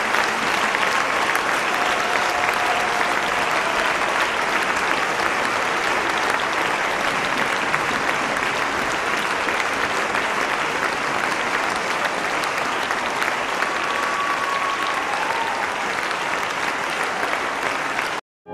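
A large concert-hall audience applauding steadily, a dense crackle of clapping. It cuts off abruptly near the end.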